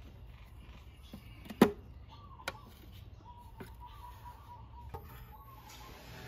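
Side trim panel of a Vespa GTS scooter being pulled off: one loud sharp snap about one and a half seconds in as it comes free, a lighter click a second later, and a few soft clicks and knocks as the panel is handled.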